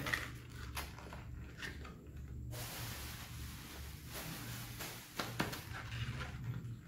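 A small cardboard product box being handled: light taps and clicks as it is turned over and set down on a cardboard tray. A stretch of steady scraping rustle runs from about two and a half to four seconds in.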